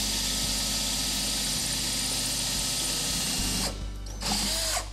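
Cordless drill running steadily as it pre-drills a hole into the vertical post of a trailer's front wall. It drops off for a moment near the end, runs again briefly, then stops.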